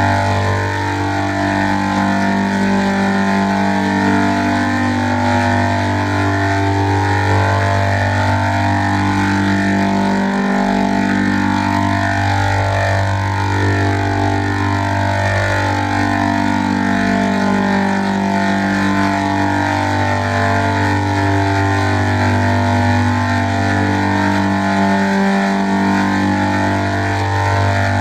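Heavily distorted, pitch-shifted 'G-Major' audio edit: a loud, constant low buzz under layered pitched tones that shift in a repeating pattern. The low buzz drops out briefly twice.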